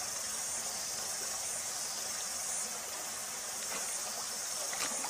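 Steady hissing rush of shallow stream water.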